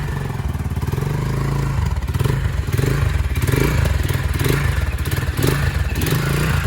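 Lifan KP Mini 150's freshly swapped single-cylinder 150 cc four-stroke engine running just after its first start, with uneven throttle blips rising and falling every second or so. The rider reckons its exhaust bolts need tightening.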